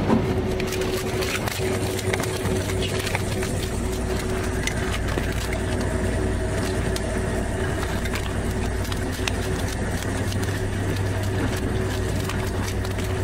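A boat's engine running steadily, with small clicks and rattles from crayfish and a hand moving inside a wire-and-cane cray pot.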